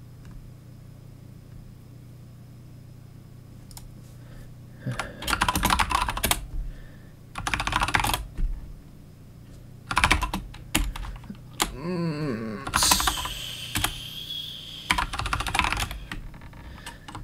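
Computer keyboard typing in several short bursts of rapid key clicks, over a low steady hum. Between the last two bursts there is a longer, different noise with a high whistle-like tone.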